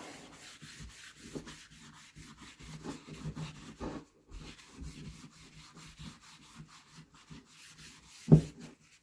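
Paper towel wiping dark wood stain onto a wooden axe handle in many quick rubbing strokes. There is a single sharp knock near the end.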